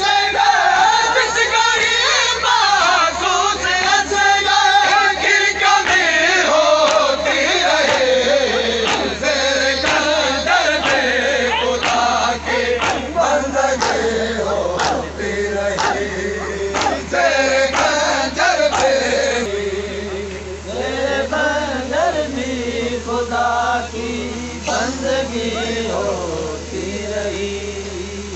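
A crowd of men chanting a noha refrain together, many voices singing in unison, over a steady low hum.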